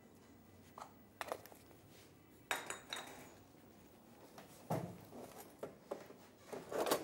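Faint clinks and knocks of kitchen dishes and utensils on the worktop: several light taps at irregular intervals.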